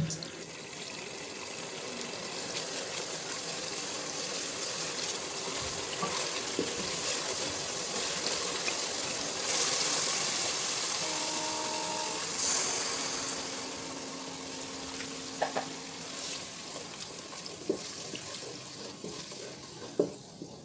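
Spice paste (masala) sizzling and bubbling in oil in an aluminium pot as it is stirred with a wooden spatula, being fried down without added water. A few light knocks of the spatula against the pot come in the second half.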